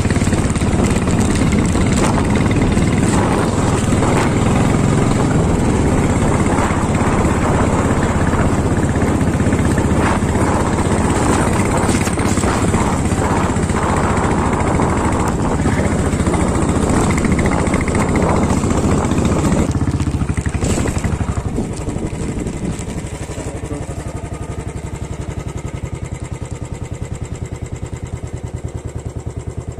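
An engine running, loud and rough for most of the time, then dropping to a quieter, steadier hum about twenty seconds in.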